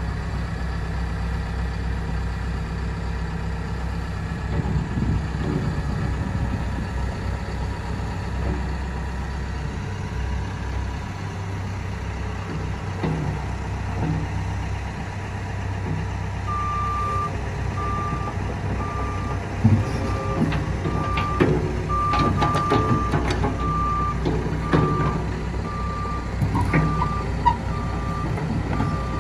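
Komatsu PC128UU-2 rubber-track excavator's diesel engine running steadily. A bit past halfway its warning alarm starts beeping, about once every three-quarters of a second, and clanks and knocks from the machine follow.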